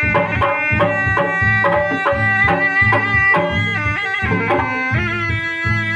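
Pencak silat accompaniment music: a reedy wind instrument, the Sundanese terompet, plays a wavering, ornamented melody over quick, steady hand-drum strokes of the kendang.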